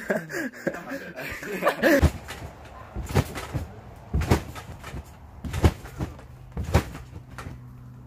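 A person bouncing on a trampoline: a thud from the mat about once a second, after a moment of voices at the start.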